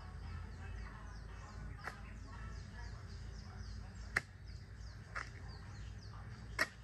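Four sharp knocks at uneven intervals, over a steady background with short high chirps repeating a few times a second.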